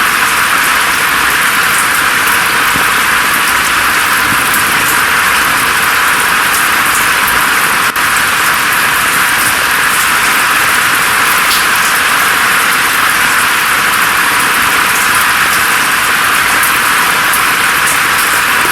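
Steady rain falling through forest foliage, an even hiss with scattered drop ticks, dipping for an instant about eight seconds in.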